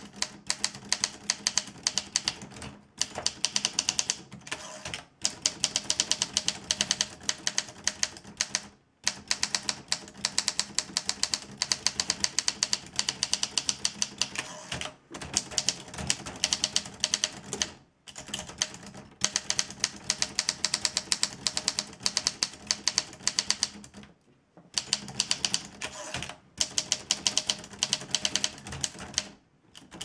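1945 Olympia Progress portable typewriter typed on at speed: a rapid, continuous clatter of keystrokes and typebars striking, broken by short pauses every few seconds.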